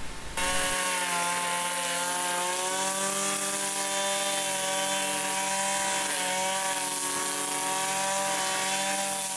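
Mitox 268 two-stroke brush cutter engine running at high revs, a steady high-pitched buzz that dips slightly in pitch about six seconds in. The exhaust silencer has just been refitted with new bolts and gaskets.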